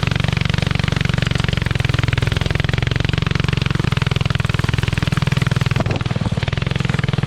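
Mini trike's Honda single-cylinder four-stroke engine running steadily under load as it climbs a steep trail, with a brief dip about six seconds in.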